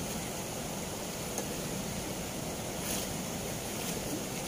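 Fast river water rushing out through a barrage's sluice gate: a steady, even rush of churning current.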